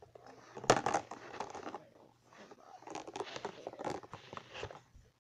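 Crinkling and rustling of material being handled close to the microphone, in two stretches with a short lull between them.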